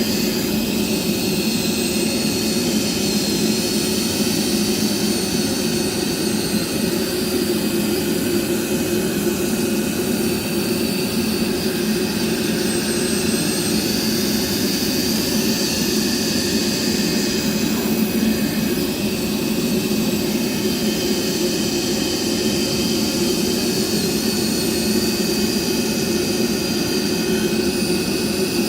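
CNC circular-knife cloth-cutting machine running: a steady, loud mechanical drone with faint high whines that shift a little in pitch now and then.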